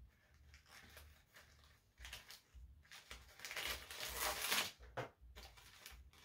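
Rustling and crinkling of a sheer drawstring organza pouch being opened and its contents, a printed card and a small packet, pulled out; loudest about three to five seconds in.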